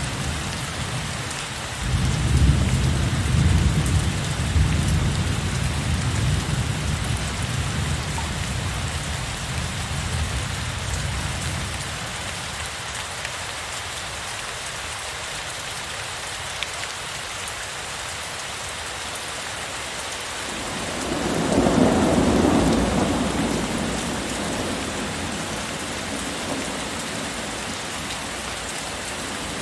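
Heavy rain falling steadily in a thunderstorm, with two rolls of thunder. A long low rumble begins about two seconds in and fades over some ten seconds, and a shorter, brighter peal swells up about two-thirds of the way through.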